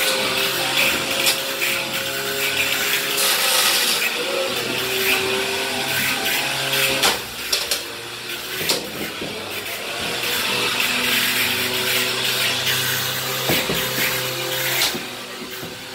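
Beetleweight combat robots' electric motors whining at a few steady pitches that start and stop, over a rough grinding hiss. Sharp knocks of hits against the arena come a few times, most plainly about seven seconds in and twice near the end.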